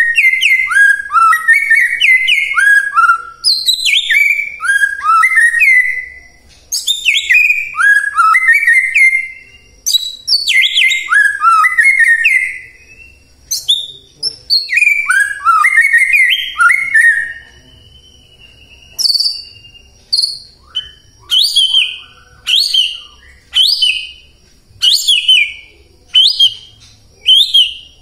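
White-rumped shama (murai batu) singing loud, rapid phrases of quick descending whistled notes. About two-thirds of the way in it changes to a string of single sharp whistled notes, roughly one a second.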